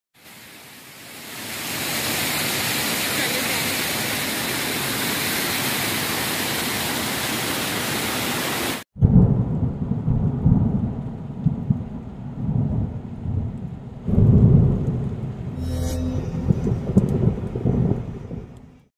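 Waterfall spilling over a stone weir, a steady rush of water that fades in over the first two seconds. It cuts off abruptly about nine seconds in. A deep thunder-like rumble follows, swelling and easing several times before dying away near the end.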